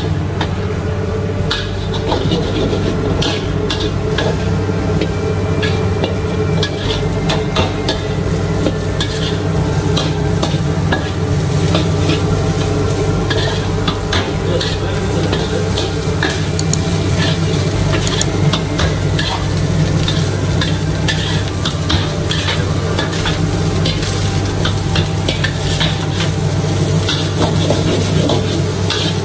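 Rice being stir-fried in a wok: a metal wok spatula scrapes and clatters against the pan over sizzling, with many quick clicks from the tool on the steel. A steady low hum runs underneath.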